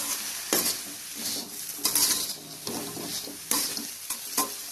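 A spoon stirring sliced bitter gourd with turmeric and salt in a metal kadai: about five scraping strokes against the pan, the loudest about two seconds in, each with a faint metallic ring.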